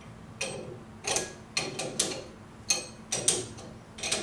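Metal clicks and clinks of a steel wrench and stainless high-pressure fittings as the tubing is fitted and the fittings are snugged up by hand: about seven sharp, irregular clicks.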